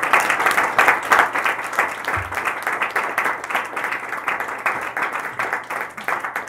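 Audience applauding: dense, steady clapping from a conference hall crowd, easing off slightly toward the end.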